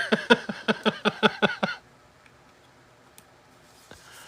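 A person laughing in rapid pulses for about two seconds, then quiet apart from a few faint clicks.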